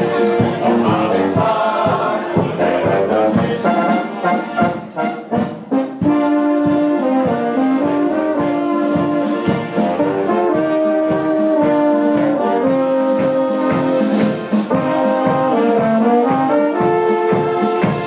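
Music from a small folk band: a brass horn carries the melody over accordion and a steady beat, softening briefly about four seconds in.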